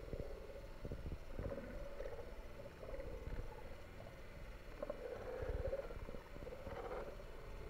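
Muffled underwater noise of water moving around a camera below the surface: uneven low rumbling with a hollow mid-pitched wash that rises and falls every second or two.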